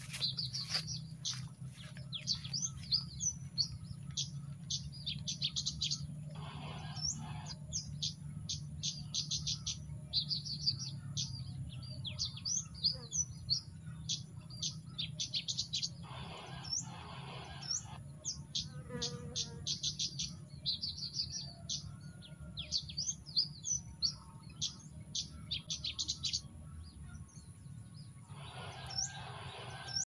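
Small songbird's chirping song played from an MP3 player as a bird-trapping lure: quick high chirps in repeated rapid phrases over a steady low hum. A few short bursts of noise break in about a quarter of the way through, around the middle, and near the end.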